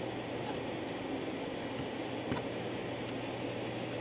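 Steady hiss of a gas soldering iron held on a wire joint while solder is flowed onto it, with one faint tick a little over two seconds in.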